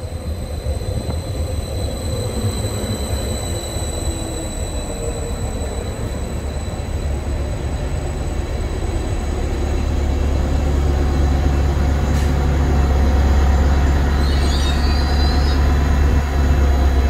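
Class 755 bi-mode multiple unit moving past close by on its wheels and rails, with a high steady whine that fades over the first half. The low drone of its diesel power pack grows louder from about ten seconds in as the power car comes level.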